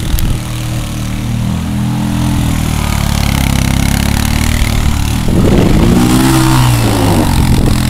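ATV engine running under throttle as the quad spins in the snow, revving up about five seconds in, its pitch rising and falling.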